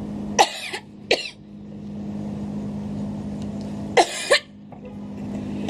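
A person coughing in two pairs of short coughs, the first pair right at the start and the second about four seconds in, over a steady low hum.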